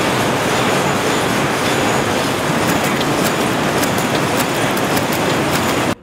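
Textile machinery running in a weaving mill: a loud, dense mechanical clatter with sharp clicks in its second half. It cuts off abruptly just before the end.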